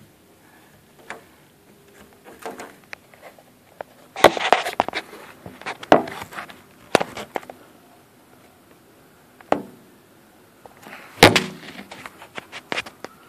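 Scattered sharp knocks and clicks, a few at a time, in a room. Near the end a siren starts to rise faintly.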